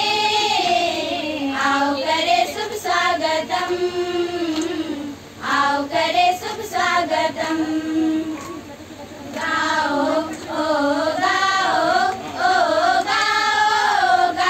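A group of schoolgirls singing a Hindi welcome song (swagat gaan) together, with short breaks between phrases about five and nine seconds in.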